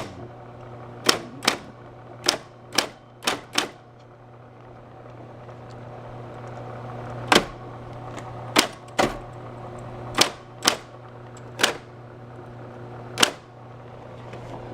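Vintage electric typewriter typing: sharp key strikes, six in quick succession in the first few seconds, then after a pause seven more, spaced about a second apart, over the steady hum of its small internal motor and fan.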